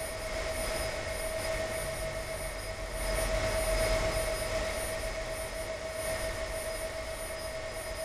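Test rig of a low-speed direct drive servo motor running: a steady hum with one strong held tone over an even hiss.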